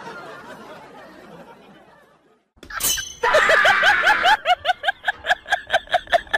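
Faint background noise fades out to a brief silence. About three seconds in, loud high-pitched laughter starts, in quick repeated 'ha' pulses about four a second.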